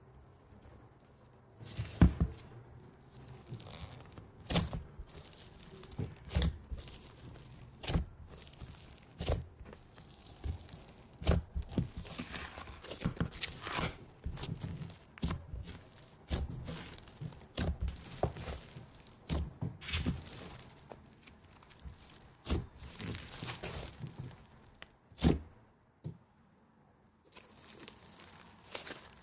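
Fluffy slime being squeezed, stretched and folded by hand, making irregular sticky clicks and crackles, with a few sharper knocks.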